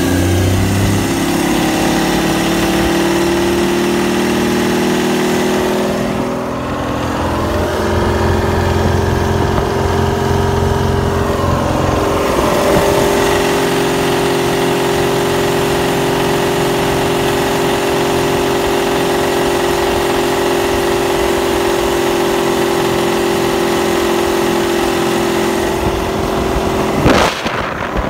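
Chris-Craft W inboard marine engine in a 1941 Chris-Craft Sportsman running, heard close up in its engine compartment; its pitch shifts about six seconds in and again about twelve seconds in as engine speed changes. A sharp click comes near the end.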